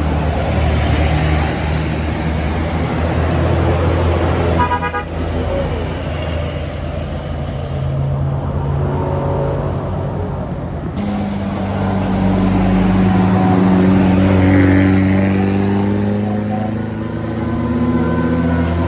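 Heavy diesel bus engines running as buses pass on a wet road, with a short horn toot about five seconds in. From about eleven seconds a deeper pitched drone joins.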